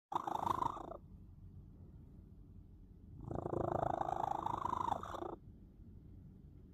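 Domestic cat snoring in its sleep: two loud raspy, rattling breaths about three seconds apart, with a fainter low rumble on the breaths between them.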